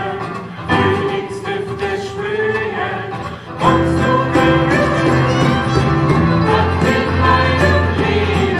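Live acoustic band of acoustic guitars, violin and keyboard, with voices singing. About three and a half seconds in, the band comes in fuller and louder.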